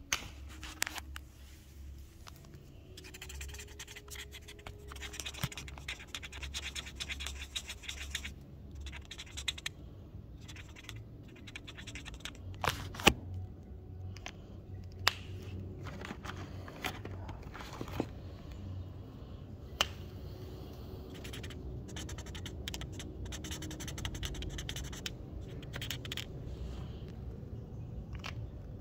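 Scratching and scraping, in long stretches of fine rapid ticks, with a few sharp knocks scattered through it.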